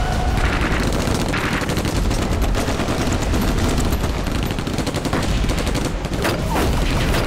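Sustained automatic machine-gun fire, many rapid shots packed closely together without a break, over a low rumble.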